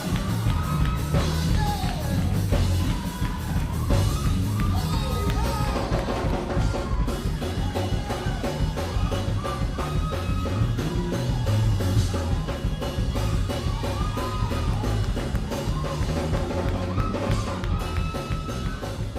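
Band music with a drum kit and heavy bass drum under a wavering melody line.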